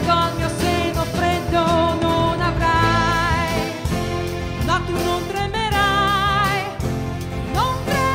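Live pop ballad: a woman sings long held notes with vibrato, sliding up into several of them, over a band of acoustic guitar, electric bass, drums and keyboards.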